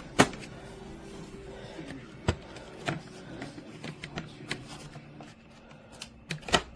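Sharp plastic clicks and knocks from the bagless vacuum's dust cup and filter being handled and refitted: a few separate snaps, the loudest just after the start and another near the end.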